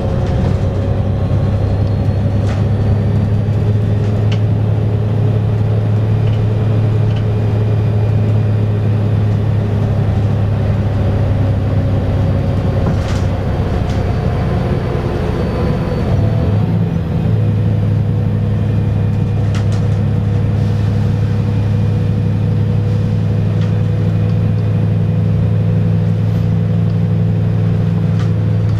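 Volvo B7R city bus's diesel engine and drivetrain running steadily at cruising speed, heard from inside the cabin as a loud low drone with a fainter whine above it. About halfway through the note breaks briefly and settles into a new pattern, as the ZF automatic gearbox changes gear. A few faint rattles are heard.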